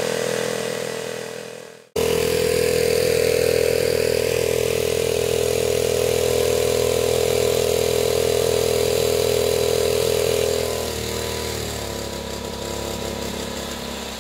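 Small boat motor running steadily, driving a homemade water pump that is pushing water up a hose. The sound breaks off briefly about two seconds in, and near the end the motor's tone falls and it gets quieter.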